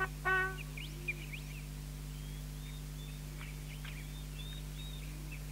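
A brass chord ends about half a second in, then faint small-bird chirps and twitters come and go over a steady low hum.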